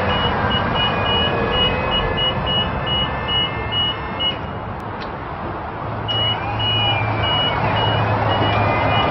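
Skyjack SJIII-3219 electric scissor lift's motion alarm beeping about twice a second while the machine operates with its platform raised, over a steady machine hum. The beeping stops a little past the middle and starts again about two seconds later.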